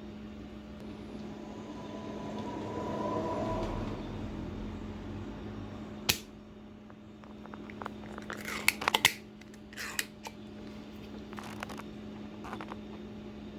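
Sharp clicks and light taps of small hand tools and parts being handled close up, over a steady low hum, with a cluster of quick clicks about eight to nine seconds in.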